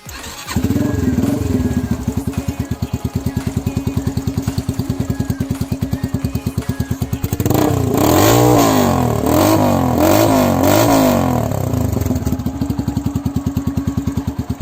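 Yamaha YBR-G 125cc single-cylinder motorcycle engine running through an SC Project slip-on exhaust: it idles with a steady pulsing note, is blipped up and down several times about halfway through, then settles back to idle.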